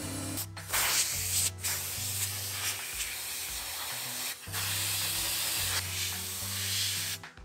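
Compressed-air blow gun hissing in several long blasts with brief breaks, stopping just before the end, blowing debris out of the radiator and A/C condenser through the front grille of a Porsche Cayenne.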